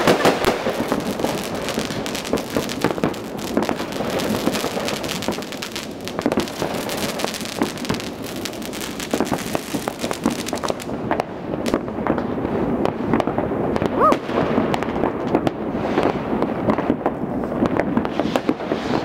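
Aerial fireworks bursting overhead: a dense, continuous crackle of many overlapping bangs and pops, thinning after about eleven seconds into separate pops, with a brief rising whistle partway through.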